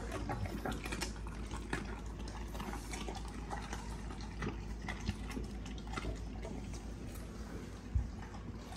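A dog eating small pieces of carrot off a hard floor, with wet chewing and many small irregular clicks. A short thump comes near the end.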